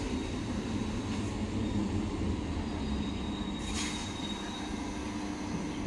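Indian Railways EMU local train rolling along the track toward the listener: a steady rumble of wheels on rail, with a faint high-pitched whine above it.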